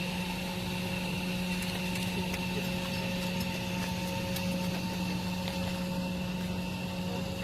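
Helicopter cabin noise: a steady drone from the engine, gearbox and rotor, with a constant low hum and several higher whines held at the same pitch.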